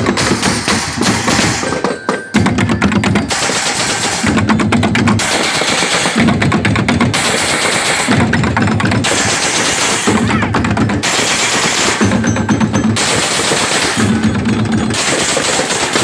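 Street drum band beating drums made from blue plastic barrels with sticks, a fast run of strokes with a heavier beat pattern repeating about every two seconds.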